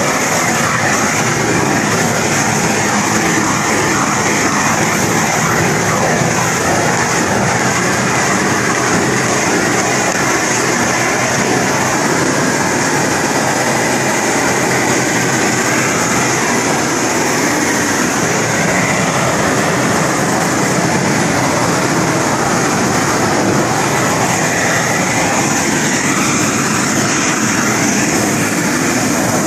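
Propane shrink-wrap heat gun running, a loud steady hiss of the torch blowing hot air onto polyethylene shrink film with no let-up.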